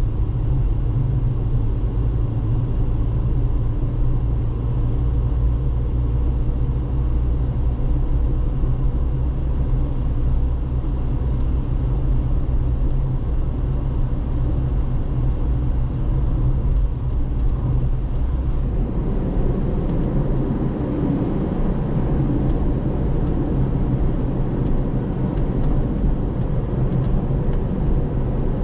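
Road noise of a car driving: a steady low rumble. About two-thirds of the way through, the deep drone eases and a rougher, higher rumble takes over.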